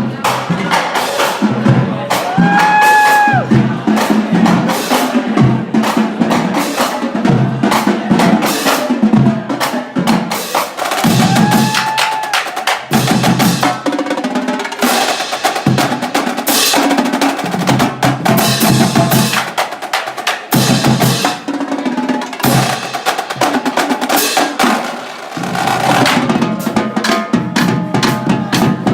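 Marching band drumline playing a loud, busy cadence on snare and bass drums, with a few brief held higher tones over it.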